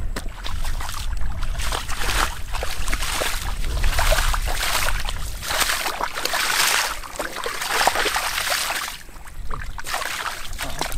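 Sloshing and splashing in shallow muddy water as a person wades and squelches through the mud and gropes in it by hand, with many short splashes and a steady low rumble underneath.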